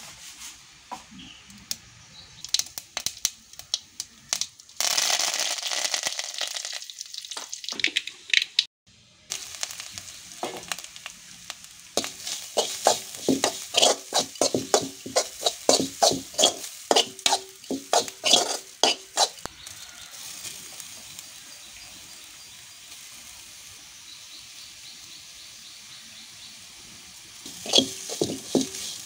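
A slotted steel spatula scraping and knocking against an aluminium kadai, in runs of quick strokes about two a second, as grated coconut is stirred and roasted in hot oil. The mix sizzles throughout, with a louder steady hiss of about four seconds early on.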